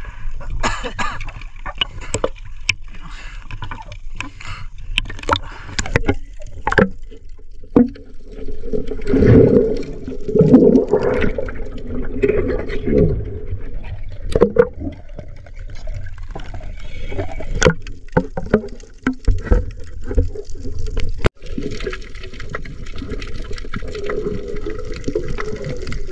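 Seawater sloshing and splashing around a camera held at the surface, with many sharp clicks and knocks, and muffled stretches as it dips under the water.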